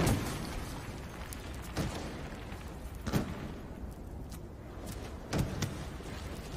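Four dull thumps, one to two seconds apart and the first the loudest, over a steady rumbling hiss.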